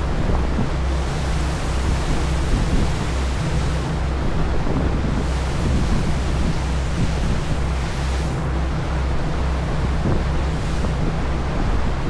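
Passenger ferry underway: the low drone of its engines with a regular throb, under the rush of the churning wake and wind buffeting the microphone.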